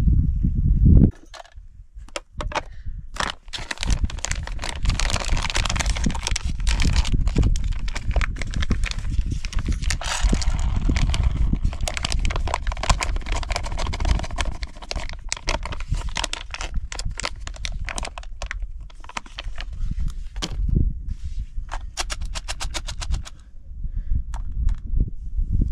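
Crinkling of a foil food pouch and the dry food inside pouring and rattling into a camping pot, a dense crackling of many small clicks. Wind buffets the microphone with a low rumble, strongest in the first second.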